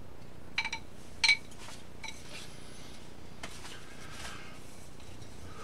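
Hard sticks of a nunchaku clinking and knocking together as they are lifted out of a container. There are a few sharp clinks with a brief ring, the loudest about a second in, then fainter knocks.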